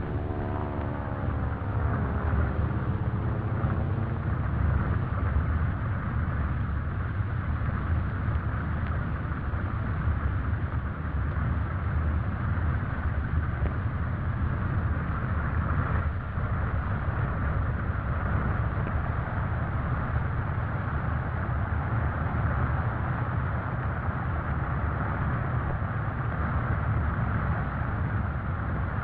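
Piston bomber engines droning steadily, with a falling whine in the first few seconds.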